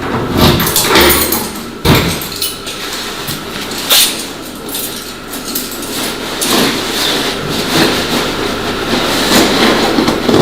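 Shop clatter: several sharp knocks and rattles of handled goods or fittings over steady background noise and a faint hum.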